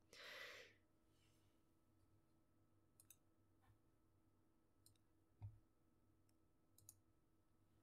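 Near silence, with a short soft hiss at the very start and then a handful of faint, scattered clicks, one with a low thump about five and a half seconds in.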